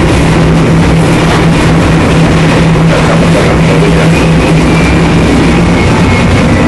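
Loud, steady drone of a ship's machinery heard from inside the hull, with a steady low hum running through it until about six seconds in.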